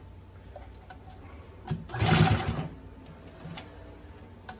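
Consew 369RB-2 double-needle post-bed sewing machine running a short burst of stitches about two seconds in, over a low steady hum. Light clicks come from the machine and the material being handled.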